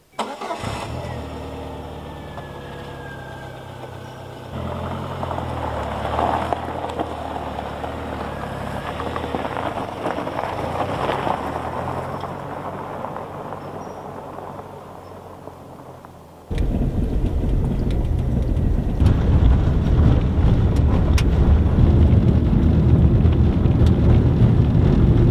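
A small car's engine starts and idles, then the car pulls away over gravel about four seconds in, its engine sound slowly fading as it drives off. From about sixteen seconds in, loud steady engine and tyre rumble on a gravel road, heard from inside the moving car.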